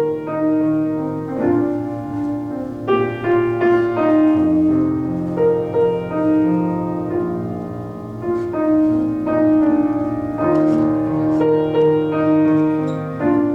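Solo piano playing a slow, gentle passage of held chords and melody notes.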